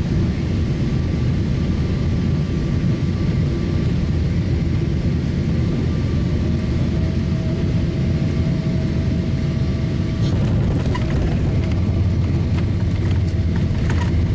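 Cabin noise of a Boeing 777-300ER on its landing: a steady low rumble of GE90 engines and airflow, with a thin engine whine, and a second tone joining about six seconds in. From about ten seconds in, knocks and rattles come as the main wheels touch down and the spoilers deploy.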